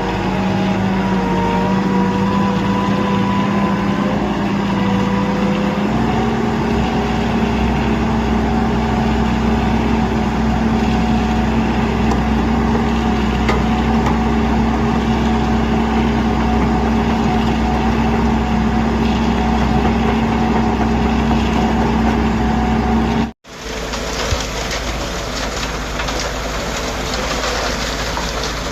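Tractor engine running steadily, its note stepping up slightly about six seconds in. Near the end a brief cut-out, after which a noisier engine sound carries on.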